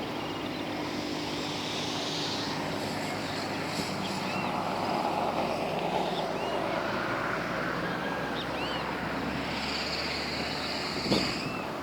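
City ambience: a steady vehicle drone, with short bird chirps from about halfway through.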